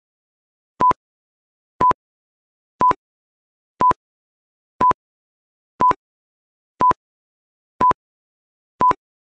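Quiz countdown timer beeping: a short single-pitch electronic beep once a second, marking off the seconds, with silence between beeps.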